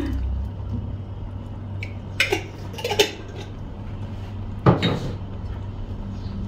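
Kitchen utensils clinking and knocking against cookware, a few separate knocks with the loudest nearly five seconds in, over a low steady hum, as olives are added to a tuna stew.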